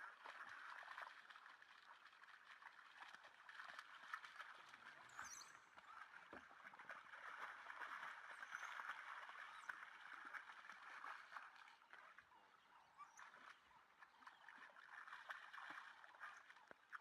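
Faint outdoor ambience: a steady hiss with scattered small clicks and a few brief high chirps.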